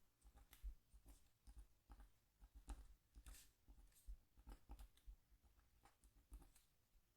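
Scratching tool scraping short strokes into a scratchboard, faint and irregular, with light taps of the tool and board between strokes.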